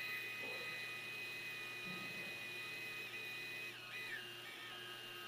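Cordless drill running steadily as it spins the knee crank of a vertical milling machine, driving the knee up its elevating screw. Its whine dips in pitch briefly about four seconds in, then carries on.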